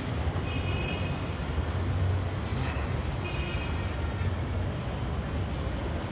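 Road traffic on a street, a steady engine and tyre rumble, with two brief high tones about half a second and three seconds in.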